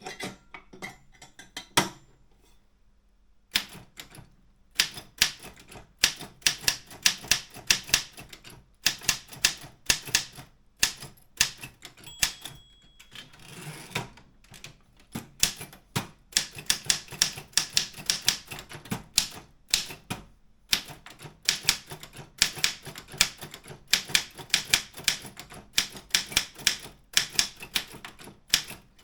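East German Optima M14 manual typewriter being typed on: quick runs of sharp key strikes with short pauses between them, after a few scattered clicks at the start.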